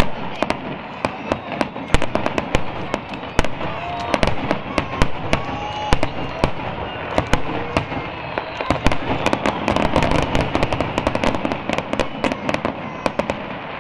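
Aerial firework shells bursting in a rapid, dense barrage: many sharp bangs come close together and overlap, over a continuous crackle.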